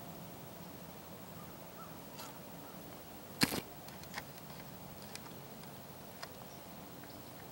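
One sharp crack about three and a half seconds in, followed by a few faint ticks, over quiet woodland background.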